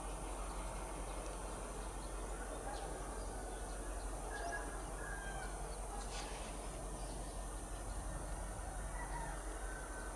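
Birds calling with short chirps now and then over a steady low hum and background noise.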